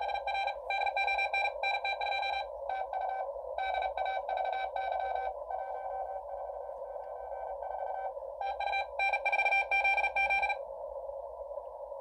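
Fast Morse code (CW) signal heard through a Xiegu G90 HF transceiver's speaker on the 40-metre band: a beeping tone keyed in quick dots and dashes over a steady narrow band of receiver hiss. The signal fades for a few seconds in the middle, comes back strong, and stops about ten and a half seconds in, leaving only the hiss.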